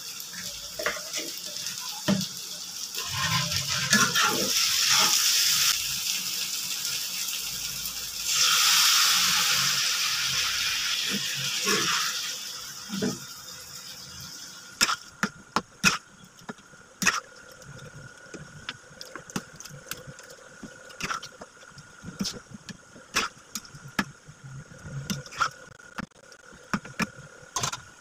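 Water poured into a hot pan of fried chicken and potato pieces to make the gravy, hissing and sizzling in two spells of a few seconds each. After that a spatula stirring the curry knocks and scrapes against the pan in sharp, irregular clicks.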